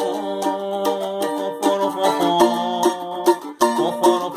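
Instrumental forró music between sung lines: a plucked string instrument playing a melody over held notes and steady percussion strokes.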